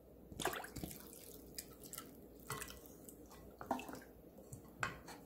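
Wooden spoon stirring a thin chili-and-soy seasoning liquid in a glass bowl: faint sloshing with scattered light clicks of the spoon against the glass.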